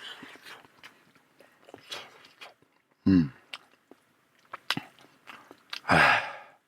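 A person eating hand-rolled noodles: chewing, with many small clicks. Two short, loud vocal sounds break in, one about three seconds in and one near the end.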